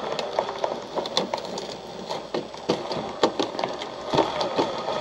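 Axial SCX24 1/24-scale RC rock crawler climbing a rock section: many irregular clicks and knocks of tires and chassis against the rocks, over a faint whine of its small electric motor and gears.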